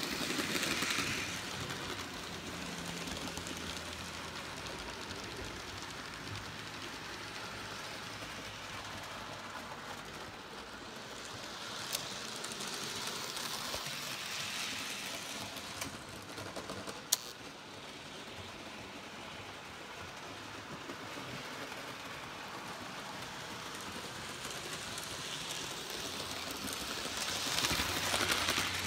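Hornby OO scale Emily model locomotive and its coaches running on model railway track: a steady whirring rumble of small wheels and motor that swells three times as the train passes close by. There are two sharp clicks in the middle, likely from the wheels crossing rail joints.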